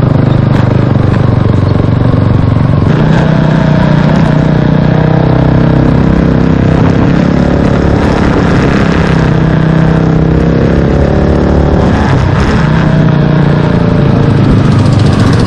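Motorcycle engine running while ridden, its note rising and falling with the throttle.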